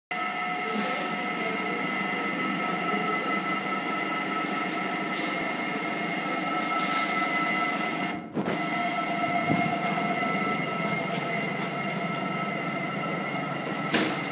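Snow fungus (tremella) slicing machine running steadily with its conveyor belt: a continuous mechanical hum carrying a few steady whining tones. The sound cuts out briefly about eight seconds in, and there is a sharp knock near the end.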